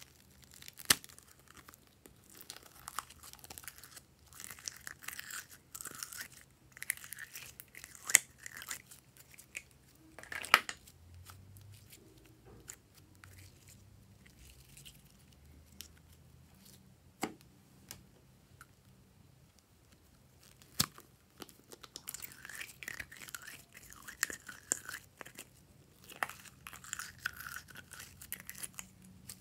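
Glossy glitter slime squeezed, stretched and pulled out of plastic moulds by hand: sticky squishing and crackling in bursts, with a few sharp single pops.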